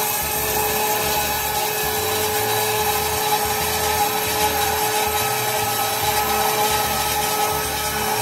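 HSS circular cold saw running with a steady whine as its blade feeds down through a round metal pipe, while aerosol lubricant hisses onto the blade.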